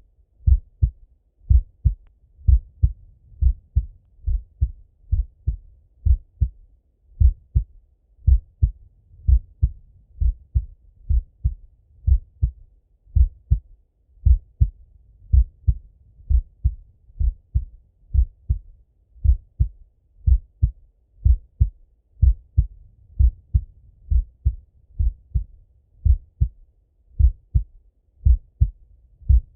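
A man's resting heartbeat heard through a Littmann stethoscope: a steady, slow, regular rhythm of paired lub-dub thuds, deep and muffled.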